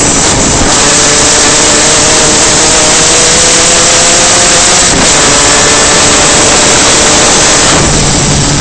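Superkart heard onboard at speed: a loud, dense rush of wind and engine noise that overloads the microphone, with the engine note climbing slowly over the first few seconds. The hiss thins out near the end.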